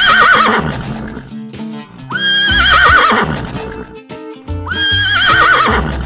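Horse whinnying three times, the first call already under way, with the calls about two and a half seconds apart; each starts as a high held note, then trembles and falls away in pitch.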